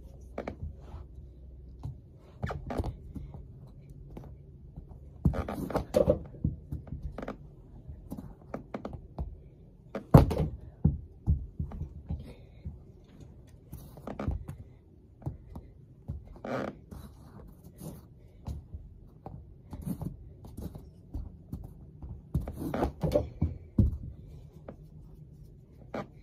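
Hockey stick blade striking a ball on a carpeted floor: a string of irregular thuds and knocks, the loudest about ten seconds in.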